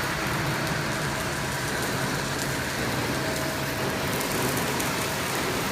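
Hydraulic press brake's pump unit running with a steady hum.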